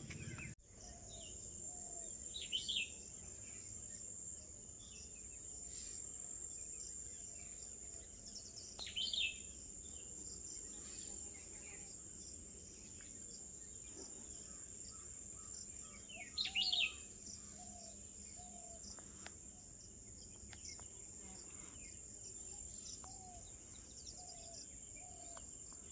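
Birds calling outdoors over a steady high-pitched insect drone: three loud short chirp bursts spaced several seconds apart, with softer low calls repeating in short runs.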